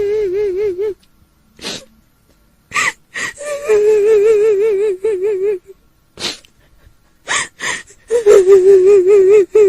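A high, wavering wail with a strong regular tremble, like a woman sobbing, in drawn-out notes a second or two long, broken by short sharp sniffing or gasping breaths: the crying voice of a kuntilanak ghost.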